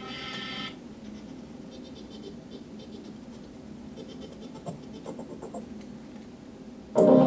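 Faint scratching and small clicks from handling a boombox, then music with heavy bass starts abruptly from the boombox's speakers near the end.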